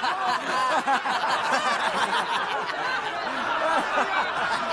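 A crowd of men laughing scornfully and talking over one another, many voices at once.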